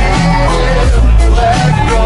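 Background music with a heavy bass line and a steady drum beat, possibly with singing.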